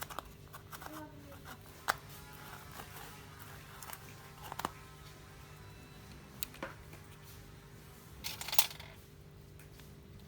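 Scattered sharp clicks and knocks of metal and plastic tool parts being handled on a workbench over a steady background hum, with a short cluster of rattling clicks near the end.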